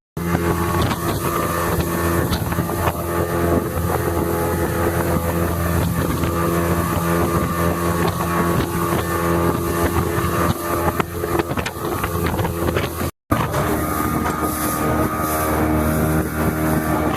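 Motorboat engine running steadily at speed, with rushing water and wind, broken by a brief dropout about two-thirds of the way through.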